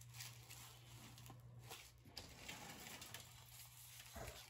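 Near silence: room tone with a low steady hum and a few faint knocks and rustles.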